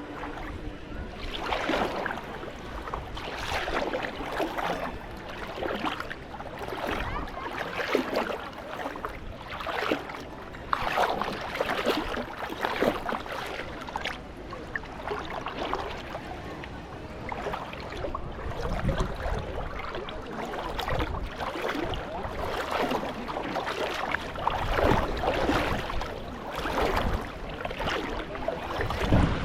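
Small waves lapping and washing on a sandy shore in uneven surges, with a low rumble of wind on the microphone.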